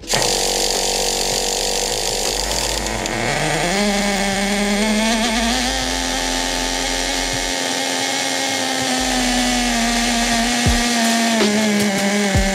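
Traxxas T-Maxx's single-cylinder, air-cooled nitro glow engine running. Its pitch climbs about three seconds in as it revs up, then holds at a high, fairly steady speed, easing down slightly near the end.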